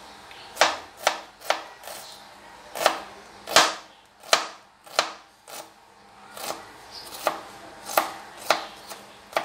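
Kitchen knife chopping an onion finely on a cutting board: about fifteen sharp knocks of the blade at an uneven pace, roughly two a second.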